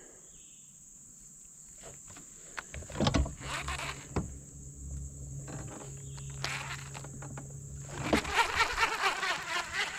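A boat's electric trolling motor hums steadily for about five seconds, starting about three seconds in, with a few knocks near its start. Crickets chirr in a constant high band throughout.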